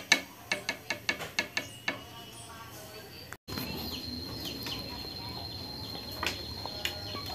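Sharp metallic clicks and taps of hand tools and small engine parts being handled, coming quickly for the first two seconds. After a break about halfway, a thin steady high-pitched tone with a few small knocks as a socket wrench is set on the flywheel nut.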